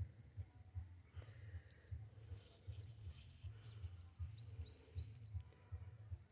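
A songbird singing one high phrase about three seconds in: a quick run of chirps that slows into a few sweeping notes. Low, uneven rumbling on the microphone runs underneath.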